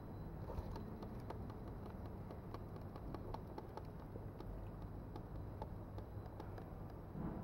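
Quiet workshop background: a steady low hum with scattered faint clicks and handling noises, and a soft low thump near the end.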